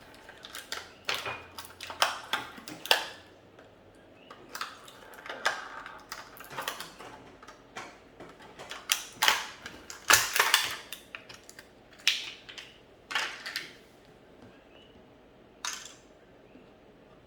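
Small toy treasure coins and hard plastic toy pieces clicking and clattering as they are handled and dropped into a plastic toy container, in irregular taps with a busier cluster about ten seconds in.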